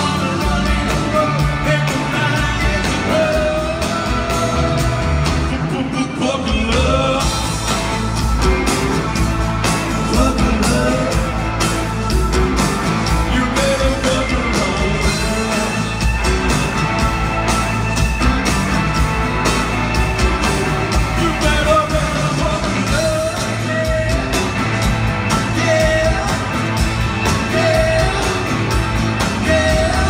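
Live rock band playing a song: a male lead vocal over electric guitar, electric bass, drums and keyboard, heard from the audience in a large hall.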